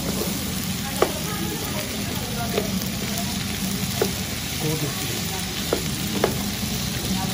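Sliced pork and bell peppers sizzling as they are stir-fried in a nonstick frying pan, with a wooden spatula scraping through them and knocking sharply against the pan about five times.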